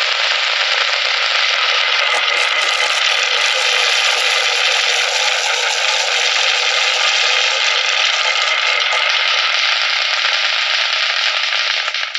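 Many marbles rolling and clattering down a wooden HABA marble run, a dense continuous rattle of small clicks.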